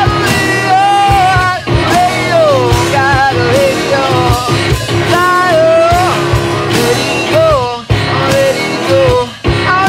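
A rock song with a sung vocal over guitar and sharp percussive hits.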